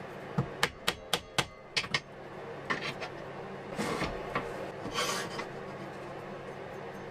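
Quick sharp knocks of hand tools being worked at a workbench, about seven in under two seconds, then two short scrapes.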